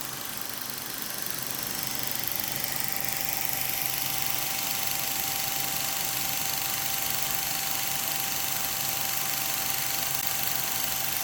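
Revere Model 80 8mm film projector running steadily, a constant mechanical whir with a faint steady high tone, as it shows film.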